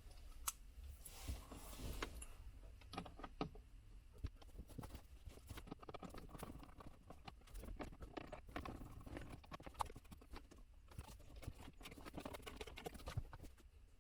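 Irregular light clicks and knocks throughout, the sound of hands handling tools and small parts.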